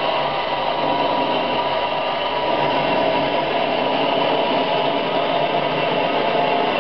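Narrow-gauge Mallet steam locomotive 99 5902 feeding water into its boiler: a steady, unbroken rushing hiss.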